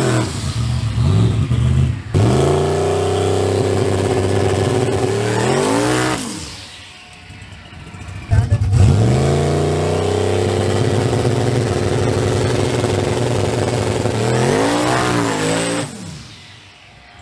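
Chevrolet Silverado drag truck doing burnouts: its engine revs up and is held at high revs while the rear tyres spin, then the revs fall away after about six seconds. About two seconds later it revs up sharply again, holds, and drops off near the end.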